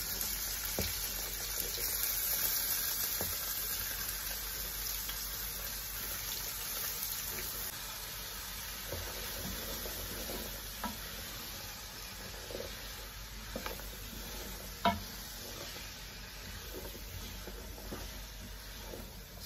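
Chopped onions and bell peppers sizzling in hot oil in a large pot, the hiss slowly dying down as they cook. A wooden spoon stirs them, knocking now and then against the pot, the sharpest knock about three-quarters of the way through.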